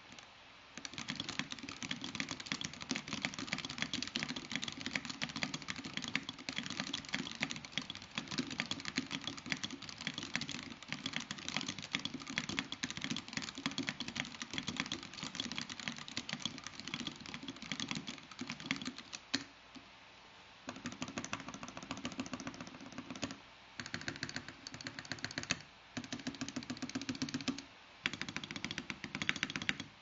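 Fast typing on a custom 60% mechanical keyboard in a glass tray-mount case (Helheim Baldr), with Alpaca V2 linear switches on a polycarbonate plate, PBT keycaps, and the PCB left unscrewed: a dense stream of key clacks, broken by brief pauses a few times in the second half.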